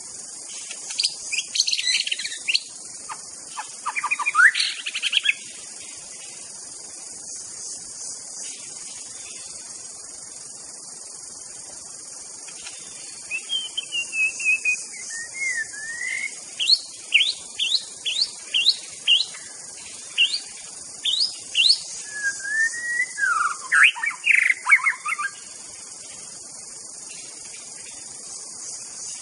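White-rumped shama (murai batu) singing loud, varied whistled phrases, a short bout at the start and a longer one from about 13 seconds in, with a run of quick rising notes and swooping whistles; a provoking song of the kind used to rile rival shamas. A steady high-pitched hiss sits underneath throughout.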